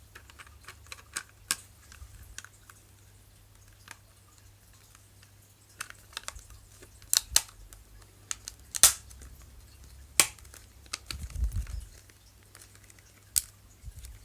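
Plastic clicks and taps from a replacement Xbox 360 hard-drive shell being handled and its top clipped on over the drive. Scattered sharp clicks, the loudest about nine seconds in, with a dull low bump a couple of seconds later.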